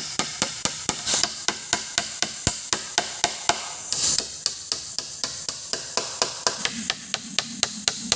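Rapid, evenly spaced blows of a hand tool striking wood, about four a second, as in hammering or chopping during shelter building.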